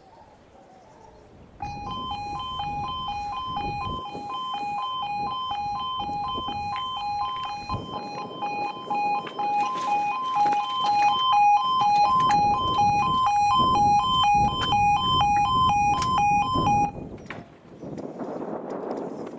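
UK level crossing warning alarms (E2S Appello sounders) sounding a rapid two-tone warble while the road lights flash and the barriers lower, warning that a train is approaching. A second alarm joins out of step about halfway through, and the alarms cut off suddenly near the end once the barriers are down.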